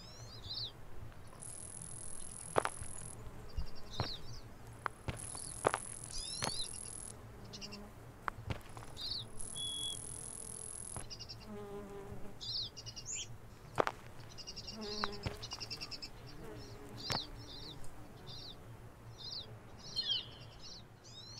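Mountain meadow ambience: small birds chirping and trilling in short falling calls, with insects buzzing. Three stretches of high hissing buzz come in the first half, and a lower, wavering buzz follows around the middle.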